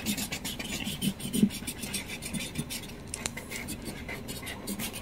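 Felt-tip markers scratching on paper as two children color, a quick, uneven run of short strokes, with one sharper tick about three seconds in.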